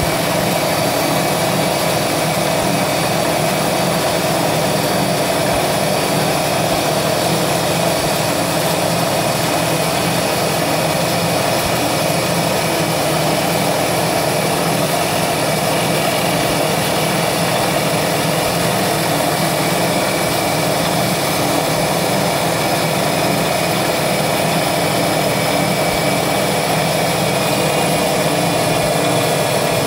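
CNC milling machine spindle running with a small end mill cutting thin aluminium plate: a steady whine with several tones over the rasp of the cut.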